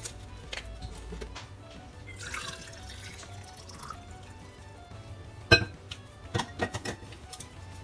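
Hot water poured from an electric kettle into a stainless steel water bottle with a tea bag in it, a trickling splash about two seconds in; a little past halfway comes one sharp knock, then a few quick clicks and clinks. Light background music plays throughout.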